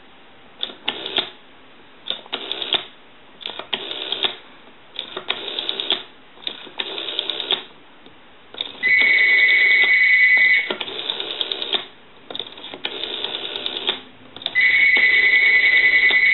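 The rotary dial of a Stromberg-Carlson 1212 desk telephone is wound and released digit after digit, each return rattling off a quick run of clicks as it pulses out the number. Twice a loud, steady high tone sounds for about two seconds, once past the middle and again near the end.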